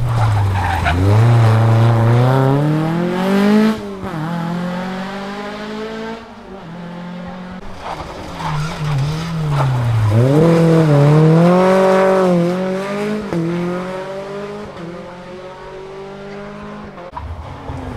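Rally car engine revving hard under acceleration. The pitch climbs steeply and then drops sharply about four seconds in, and after a dip it climbs again into a second loud stretch around ten to thirteen seconds.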